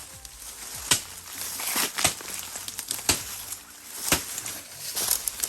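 Crunching footsteps on dry leaves and brush, about one step a second.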